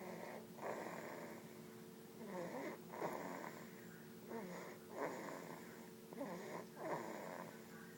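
A sleeping baby snoring, with a snoring breath about every two seconds and a nasal rattle on each one, about four breaths in all. A faint steady hum runs underneath.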